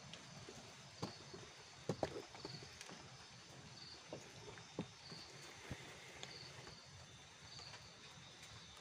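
Faint chirping of night insects, a short pulse repeating about once a second over a steady high trill, with a few soft knocks and taps.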